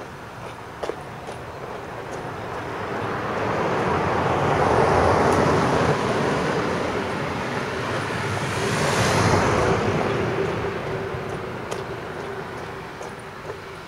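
A motor vehicle passing close by: a rush of engine and road noise that swells, peaks twice, about five and nine seconds in, then fades away.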